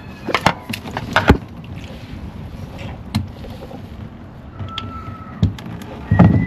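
Sharp knocks and clicks from handling tools and parts during a hands-on oil filter change, clustered in the first second and a half, with a loud knock near the end. Two brief squeaky tones come in the second half, the second one rising.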